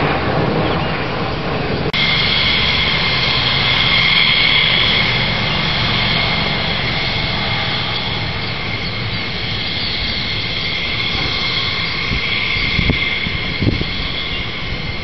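Military fighter jet engine noise: a jet's roar at first, then, after an abrupt change about two seconds in, a steady jet roar with a high whine running over it.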